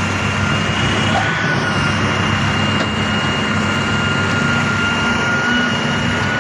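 Excavator's diesel engine running steadily, with a steady high-pitched whine over its roar.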